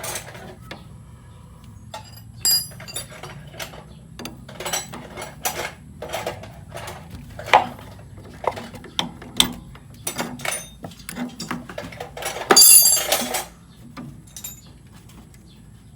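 Metal tools and parts clinking and knocking in irregular light strikes, with a louder rattling burst about three quarters of the way through that lasts about a second.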